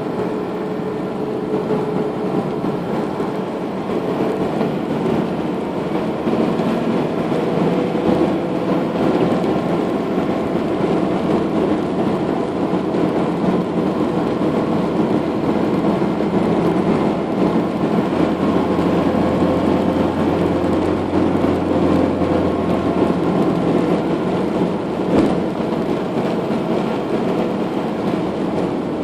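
Steady road and engine noise heard from inside a moving vehicle's cabin, with a deeper hum growing stronger partway through.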